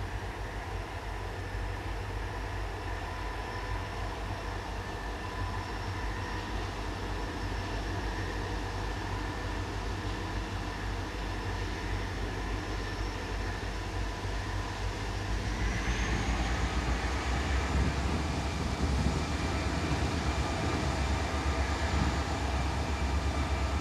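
Canadian Pacific diesel freight locomotive running as it approaches with a train of hopper cars, a steady engine rumble under a whine. About two-thirds of the way in the engine note rises in pitch and grows louder.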